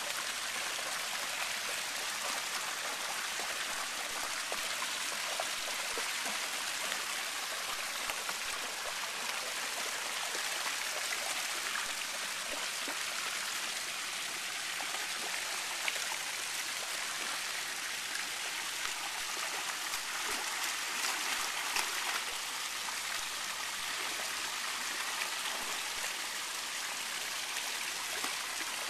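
Fountain jets splashing steadily into a shallow pool, a constant rush of falling water, with a few sharper splashes from a dog wading through the water.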